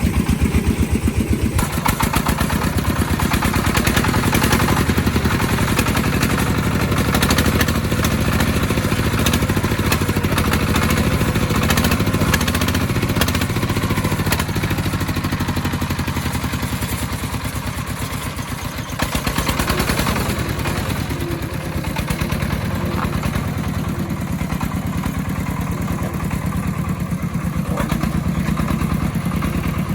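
Engine of an agricultural timber-hauling vehicle running with a steady clattering beat. It eases off a little past the middle and picks up again about two-thirds of the way through.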